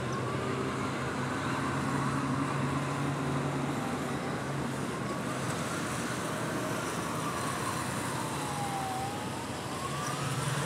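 A siren wailing slowly, its pitch rising and falling every few seconds, over a steady low traffic hum.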